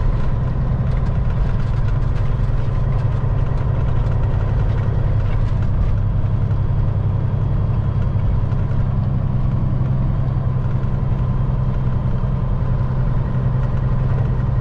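Caterpillar C15 diesel of a 2006 Peterbilt 379 heard from inside the cab, pulling steadily down the road. It makes an even, unchanging low drone with no shifts or revs.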